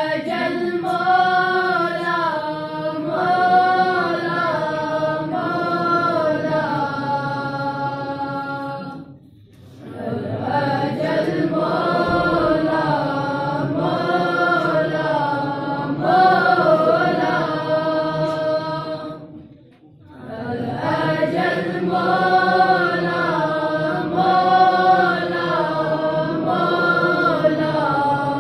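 Group of young male voices singing a devotional tarana in unison, unaccompanied, into a microphone: three long, slow phrases of held, wavering notes, each broken by a brief pause for breath, about nine and about twenty seconds in.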